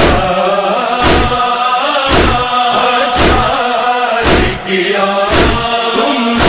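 Noha lament chanted by voices over a steady beat of chest-beating (matam) thuds, one strike a little more often than once a second.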